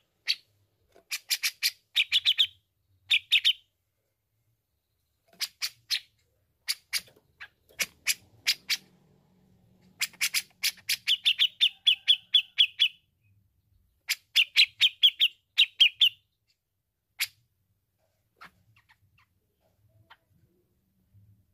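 Grey-cheeked bulbul (cucak jenggot) calling in rapid runs of sharp chattering notes, in phrases one to three seconds long with short pauses between them. The calling stops about seventeen seconds in, leaving only a few faint ticks.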